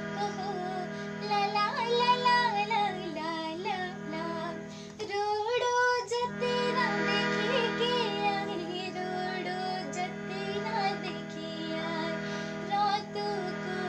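A young woman singing a Jaunsari folk song, her melody wavering and ornamented over a steady drone. About five seconds in, the drone drops away briefly while she holds one long wavering note.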